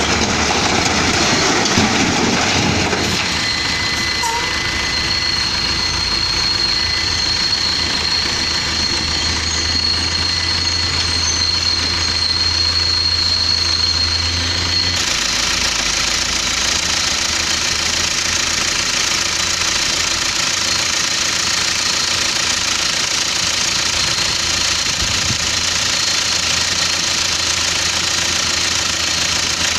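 Diesel dump truck engine running steadily with a clattering knock. The sound changes abruptly about halfway through.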